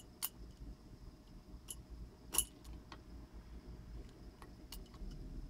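Scattered light clicks and scrapes, about half a dozen, from a razor knife working at the plastic flex tube of a fuel pump module; the loudest click comes about two and a half seconds in.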